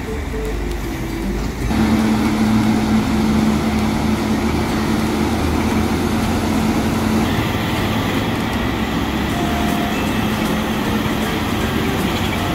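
Heavy-haul truck diesel engine running, a steady drone that grows louder about two seconds in.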